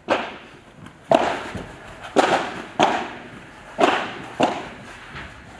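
A padel rally: six sharp pops of the ball struck by rackets and rebounding off the court, about one a second, each ringing with echo in the large hall.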